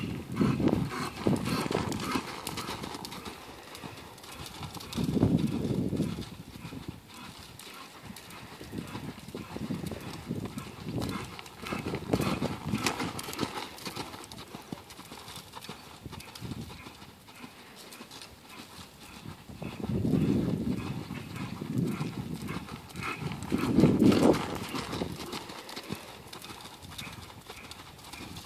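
Hoofbeats of a ridden American Quarter Horse gelding moving through sand footing, a steady rhythmic beat that swells louder several times.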